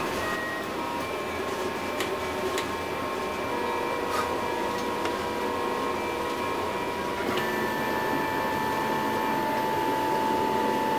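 MendelMax 3D printer running, its stepper motors whining in several steady tones over a constant whir as the print head moves into position. The whine changes pitch about seven seconds in, and there are a few faint clicks.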